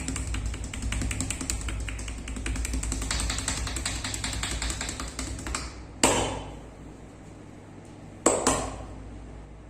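Fast, even run of hand taps, massage percussion (tapotement) on the body, which stops about six seconds in. A sharp ringing hit follows, then two more in quick succession near the end.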